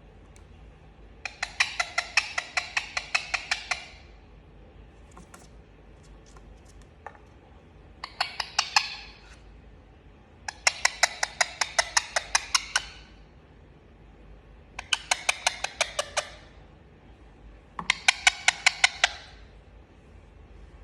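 Indian ringneck parrot making a rapid clicking chatter in five bouts of about two seconds each, separated by short pauses.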